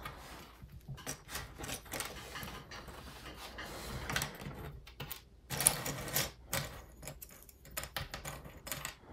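Small birch-plywood jigsaw pieces clicking and clattering as fingers pick them up, shuffle them and set them down on a wooden tabletop. The clicks come irregularly, with a busier, louder patch a little past halfway.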